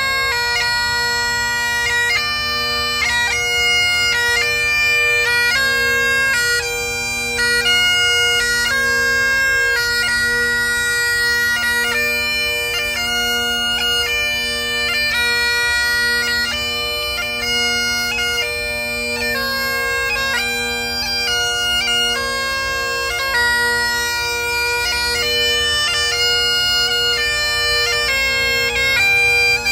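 Scottish Great Highland bagpipe playing a slow piobaireachd: steady drones under a chanter melody of long held notes changing about once a second.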